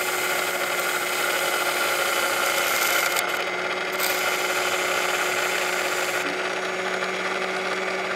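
Small electric wet-wheel sharpener running with a steady hum while the squared-off end of a new Mazda rotary-engine side seal is ground down on its fine wheel, a scraping hiss over the motor. The seal is being shortened to fit against the corner seal. The grinding hiss eases about six seconds in while the motor keeps running.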